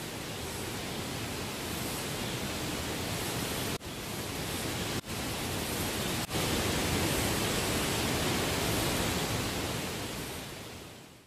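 A steady, even rushing noise, broken by three brief dropouts and fading out at the end.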